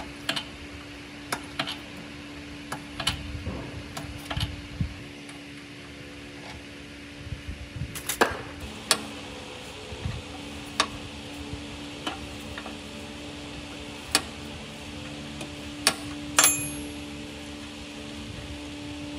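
Wrench clinking against a rusted nut and the rusty metal base of an old rolling planer as the nut is worked loose: scattered, irregular sharp metal clicks, with one ringing clang near the end, over a faint steady hum.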